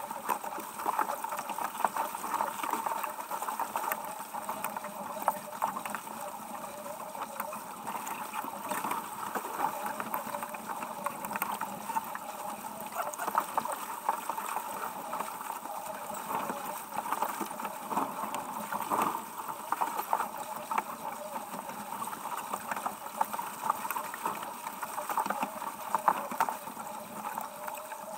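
Water rushing and splashing along the hull of a sailboat under sail, with a steady, uneven hiss and crackle of wash and wind.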